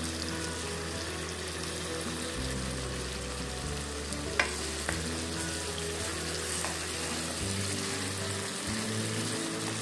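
Chicken drumsticks sizzling as they fry in oil in a nonstick pan, with a sharp click about four and a half seconds in.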